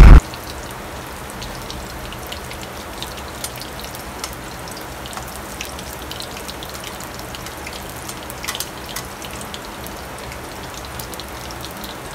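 Balls of wheat-flour and jaggery batter (gulgule) deep-frying in hot refined oil in a kadhai: a steady sizzle with scattered small pops and crackles.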